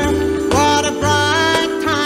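A Christmas pop song playing: a singing voice with sliding notes over a bass line, with jingling bells.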